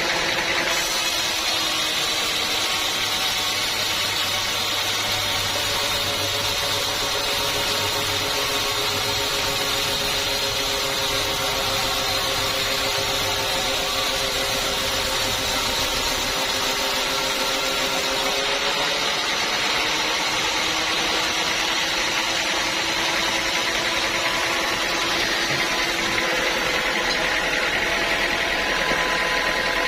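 Sawmill saw running and cutting through a dense teak log: a steady, loud machine whine with several held tones that shift slightly about two-thirds of the way through.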